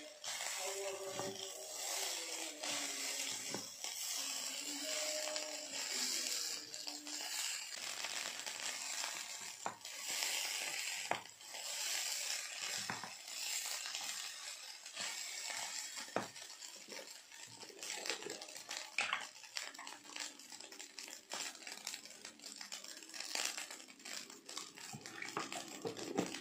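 Fried rice being stirred and turned with a silicone spatula in an enamel pot: a rough scraping through the rice, with frequent short knocks of the spatula against the pot.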